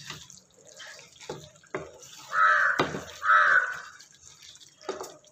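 Wooden spatula stirring thick, wet chicken gravy in a kadai, with squelching and a few sharp knocks against the pan. About two seconds in, a crow caws twice, loud, each call about half a second long.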